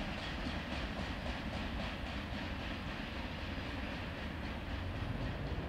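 Freight train's covered hopper wagons rolling away over the rails: a steady rumble of steel wheels with a faint, regular clickety-clack at the rail joints.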